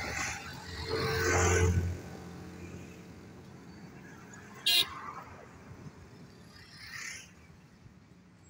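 Freight train wagons rolling past on the track with a low steady rumble. A loud vehicle-like swell with a low drone comes about one to two seconds in, and a brief sharp sound a little before five seconds.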